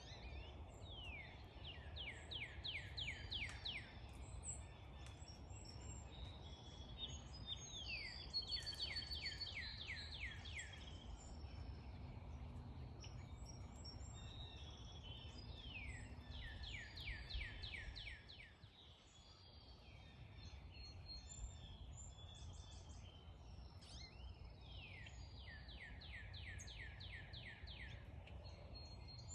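Birds singing: one bird repeats a song of a quick run of falling notes four times, about every eight seconds, while other birds chirp faintly. A steady low rumble sits underneath.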